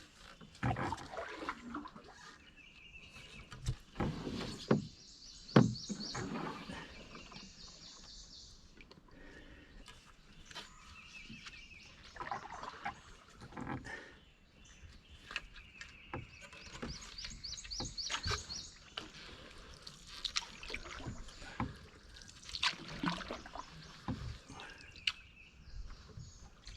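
Canoe paddling: the paddle dips and splashes, with knocks against the hull and water dripping off the blade. Birds call throughout, including a fast high trill that comes twice.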